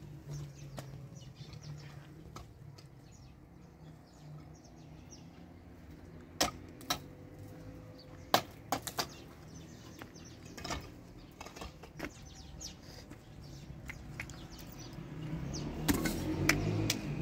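Scattered sharp knocks and clicks over a low background rumble, the loudest coming in a group about six to nine seconds in and a few more near the end.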